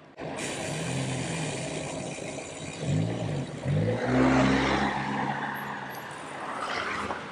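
A car driving past on a narrow lane: its engine and tyre noise swell to their loudest about four to five seconds in, then ease off.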